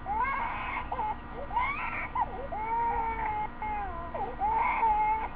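A baby crying: a string of high wails, each about a second long, bending up and down in pitch with short breaks between them.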